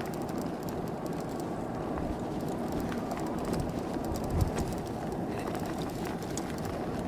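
E-bike riding noise: a steady rumble of tyres on rough pavement with wind on the microphone, and one short bump about four and a half seconds in.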